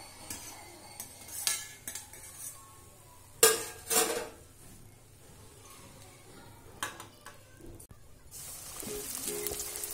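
A steel slotted spoon clinks against an iron kadhai and a steel plate as a fried snack is lifted out of the oil, with two loud clanks about three and a half and four seconds in. Near the end, hot oil sizzles in the pan.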